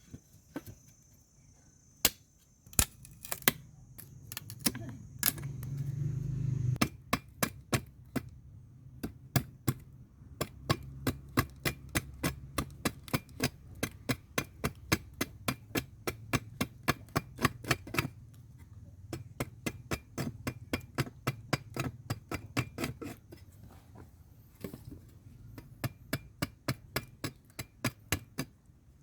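A hand tool striking wood or bamboo: a few scattered knocks, then a long run of evenly spaced sharp strikes, about two or three a second, over a low hum.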